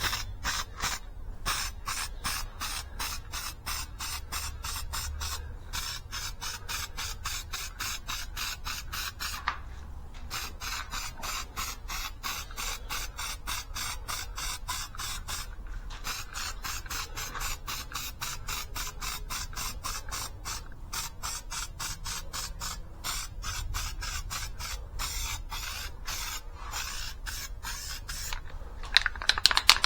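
Spray primer hissing in quick, evenly spaced short strokes, about three or four a second, with a few brief pauses.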